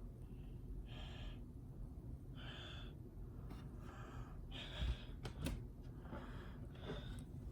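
A person breathing close to the microphone in short, quick, audible breaths, about one a second, over a steady low hum. There are a couple of sharp clicks about five seconds in.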